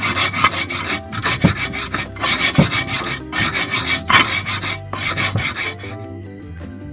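Stone pestle rubbed hard across a flat stone mortar (Indonesian ulekan and cobek), grinding spices in quick back-and-forth strokes, a rasping stone-on-stone scrape with brief pauses, stopping about six seconds in. Soft background music runs underneath.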